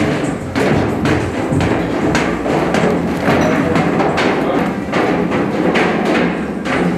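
A run of irregular thuds, typical of football pads and helmets colliding in drills, with music underneath.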